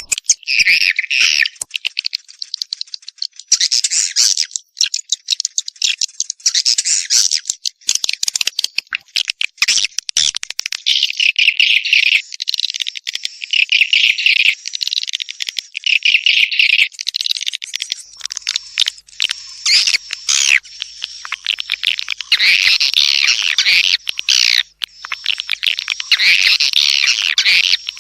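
Swiftlet calls: dense, overlapping high-pitched twittering and rapid clicking chirps with no pause. This is a swiftlet mating-call ('birahi') lure recording, the kind played to draw swiftlets to a nesting house. About two-thirds of the way through, the chorus thickens.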